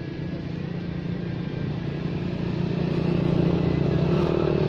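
A vehicle engine running with a steady hum, growing louder in the second half.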